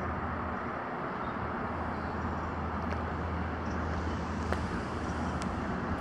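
Steady outdoor background noise with a low, even hum, with two faint ticks near the end.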